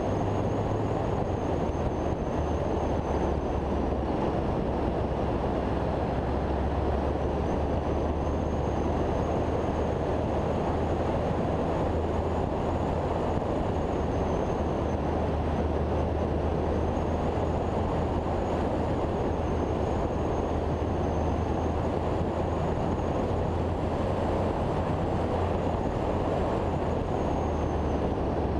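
A car driving at an even pace: a steady low engine drone under road and wind rumble, with no sharp changes in level.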